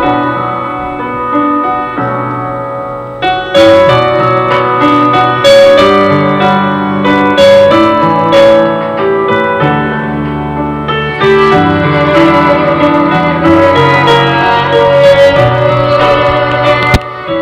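Piano music: a melody over sustained bass notes, getting fuller and louder about three and a half seconds in.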